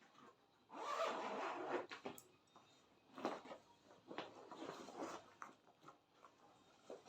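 A zipper being pulled open in one long stroke about a second in, followed by a few shorter zipping or rubbing strokes.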